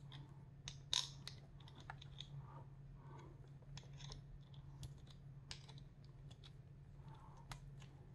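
Faint scattered clicks and small plastic rattles from a two-pronged key being twisted and worked in a keyed plastic trigger lock, which is stuck and not releasing. A steady low hum runs underneath.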